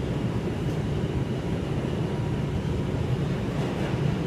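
Steady low rumble of an R142 subway car running through a tunnel, heard from inside the car, with a faint steady whine above the rumble.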